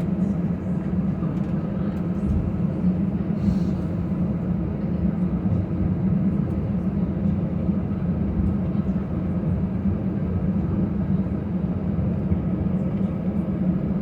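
Steady low hum and rumble of an Airbus A319's cabin on the ground after landing, with a few faint clicks.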